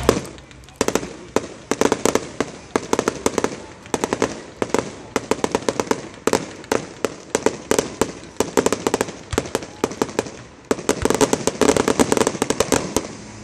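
Aerial fireworks bursting: a rapid run of sharp cracks and bangs, several a second, thickening into a dense volley near the end.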